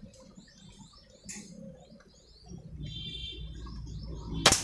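Small birds chirping and a dove cooing in the background, then near the end a single sharp crack: a sidelever PCP air rifle being fired.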